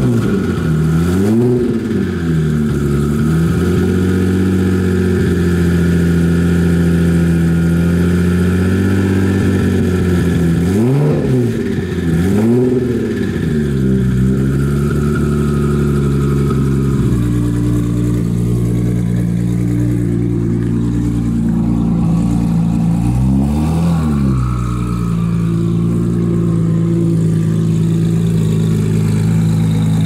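Heavily tuned Nissan GT-R's twin-turbo V6 running at idle, blipped to a short rev and back down a few times: once near the start, twice in quick succession in the middle, and once more later on.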